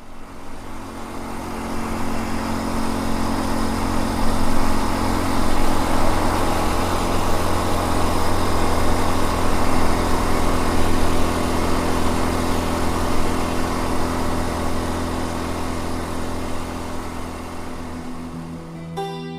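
Steady motor hum with a whirring hiss, fading in over the first couple of seconds and fading out near the end, where plucked acoustic guitar notes begin.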